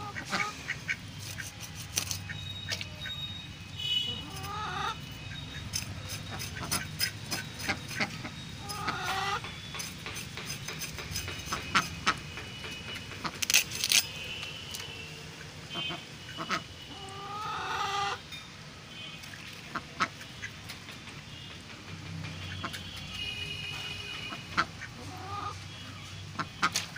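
A fish being cut on a boti, a curved blade fixed upright on a base: scattered clicks and scrapes as flesh and bone are worked against the blade. Poultry calls a few times in the background.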